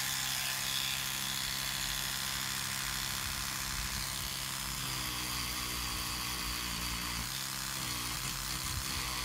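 Electric toothbrush with a round brush head running with a steady buzz. About halfway through its tone shifts as the head is put against the rusty steel grip frame of a Luger P08 pistol to brush off loose rust.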